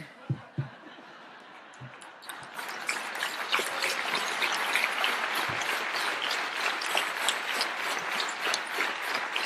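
A few soft knocks as shoes are handled at a podium microphone, then from about two seconds in a large audience applauding steadily.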